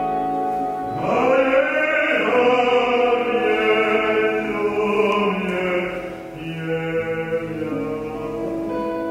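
A male singer holds long, wavering notes over sustained instrumental music. The voice enters about a second in with an upward slide, is loudest for the next five seconds, and drops back near six seconds to a shorter, quieter phrase.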